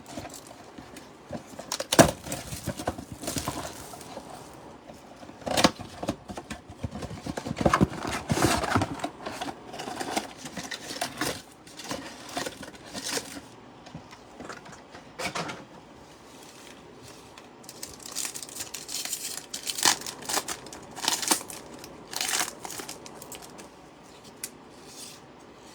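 Hands tearing open and crinkling a trading-card pack wrapper and handling the cards, in irregular crackling bursts with a sharp rip about two seconds in and more crinkling near the end.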